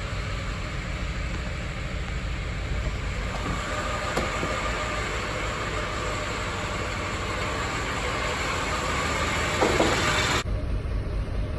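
2006 GMC Envoy engine idling rough at low RPM: a steady low rumble with a hiss over it. The hiss cuts off abruptly about ten seconds in. The owner suspects the crank sensor, and possibly the cam sensor, as the cause of the rough idle.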